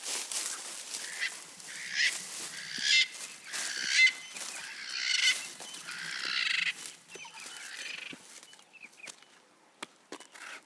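Birds calling in a run of harsh calls about once a second, the loudest near the middle, then dying away to a few faint chirps.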